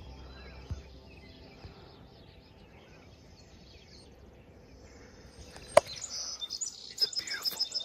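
Quiet early-morning outdoor ambience with birds chirping. About six seconds in comes one sharp click, and after it the bird calls are louder, with a quick trill of repeated notes near the end.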